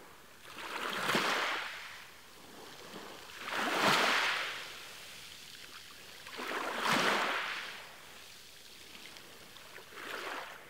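Small waves washing in on a shore: four swells about three seconds apart, each rising and falling away, with a low wash of water between them.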